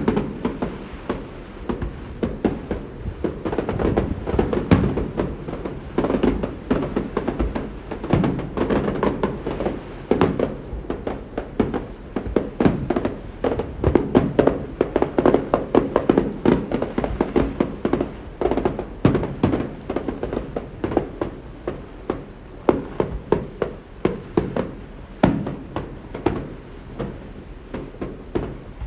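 Fireworks display going off in a fast, continuous string of bangs, several a second, each with a low rumbling echo; the bangs come thickest in the middle.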